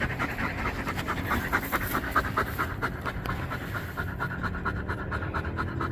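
A dog panting quickly and steadily, about six pants a second.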